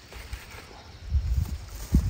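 Wind buffeting the microphone in low, uneven gusts that grow stronger about a second in, with a dull thump near the end.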